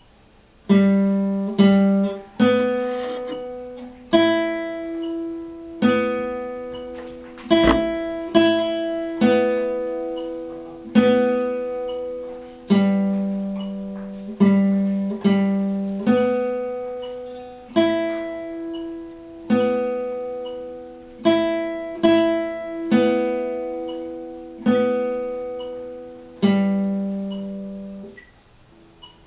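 Classical nylon-string guitar played fingerstyle: a slow exercise of plucked single notes and chords, each struck and left to ring and die away, about one every one to two seconds.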